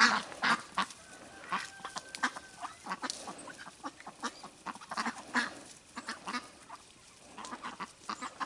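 Flock of domestic ducks quacking in short, scattered, overlapping calls, busiest in the first half and thinning out later.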